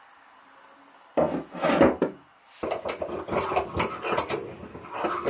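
A heavy metal bench vise being handled on a plywood workbench. After about a second of quiet come knocks and scraping against the wood, then a run of light metallic clicks and clinks.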